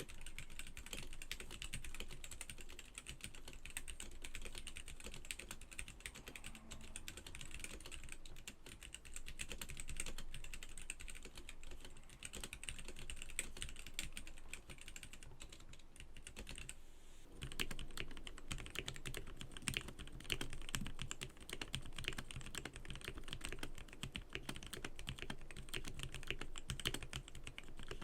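Fast, continuous typing on a Womier Gamakay K87 mechanical keyboard with Gateron Yellow linear switches. After a short break about two-thirds of the way through, the typing resumes with a deeper, fuller sound: the lubed switches after the stock ones.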